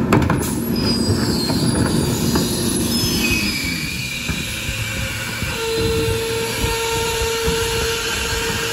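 New Way King Cobra rear loader's hydraulic packer cycling over the Peterbilt's running diesel engine. There is a knock at the start as a cart is banged into the hopper, then several falling metallic squeals, and from about halfway a steady high hydraulic whine.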